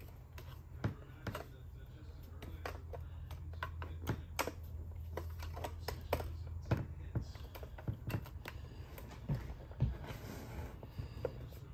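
Irregular small clicks, taps and scrapes of a screwdriver and a metal blade prying at the plastic clips of a Cricket talking doll's cassette door, over a low steady hum.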